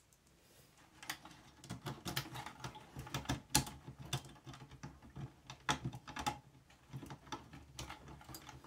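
Irregular small clicks and rattles, beginning about a second in, of hands handling a wiring plug and cable harness inside an open cassette deck's metal chassis.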